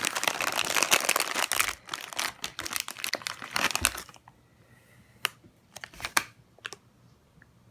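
Snack bag of chocolate-covered pretzels crinkling and rustling as it is handled and opened, for about four seconds, then a few light clicks and taps.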